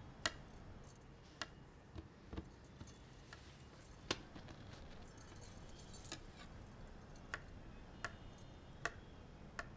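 Faint room tone broken by about ten small, sharp clicks and clinks at irregular intervals, a few a second apart.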